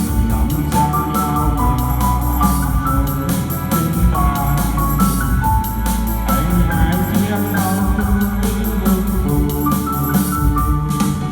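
Music: a melody on an electronic keyboard with an organ-like sound, held notes stepping up and down over a steady bass and beat.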